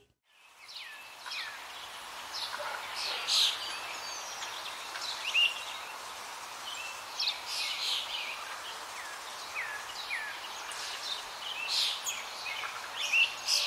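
Birdsong ambience: several small birds chirping and twittering, with short downward-sweeping calls, over a steady background hiss that starts about a second in.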